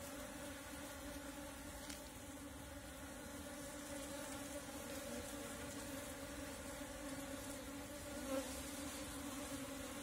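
A swarm of Asian honey bees (Apis cerana) buzzing in a steady, even hum close up, with a short louder buzz about eight seconds in.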